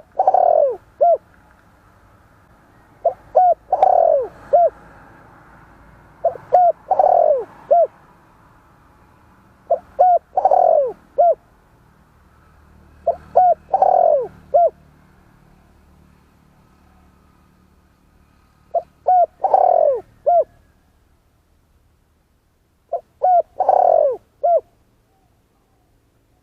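Spotted dove cooing: a repeated phrase of two short coos, a longer falling coo and a short final coo. It comes seven times, every three to four seconds, with a longer pause before the last two phrases.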